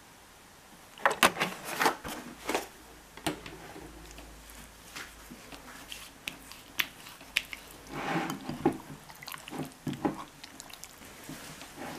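Silicone spatula mixing raw chicken pieces with egg and milk in a glass bowl: irregular wet squishing and sharp clicks, starting about a second in.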